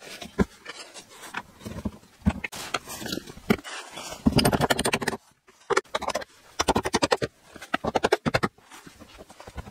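Knocks, clicks and scraping from a plastic door and its frame being handled and fitted on its hinges, with two quick rattling runs of clicks, one about halfway through and one later.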